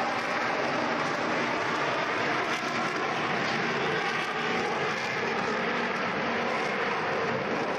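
Avro Vulcan bomber's four Olympus turbojet engines, a steady loud rushing jet roar as the aircraft banks and climbs overhead.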